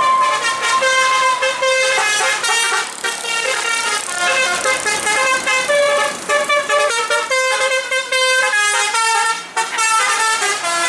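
A bus's basuri telolet musical horn playing a fast melody of many short notes, with a brief break about nine and a half seconds in.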